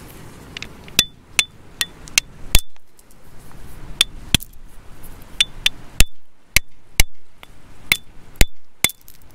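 Steel rock hammer striking a small stone nodule, about fifteen sharp irregular taps, many with a short high metallic ring, with a pause about three seconds in. The stone is being split open to expose a fossil ammonite inside.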